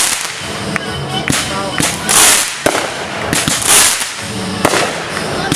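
Consumer fireworks going off: several sharp bangs mixed with about three loud hissing, crackling bursts, one every second or so.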